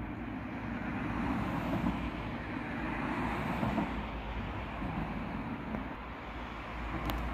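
Road traffic: a steady rush of tyre and engine noise from cars passing on a nearby road, swelling a little in the first few seconds.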